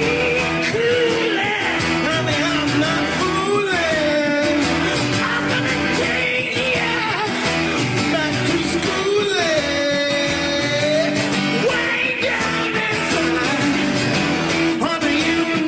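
A man imitating an electric guitar lead with his mouth, his voice sliding and bending between notes like string bends, over a strummed guitar accompaniment.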